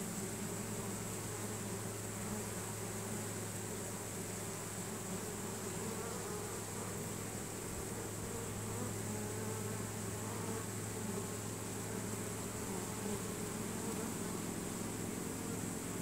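Honey bee swarm buzzing: a steady low hum of many bees as the swarm marches into a new hive box.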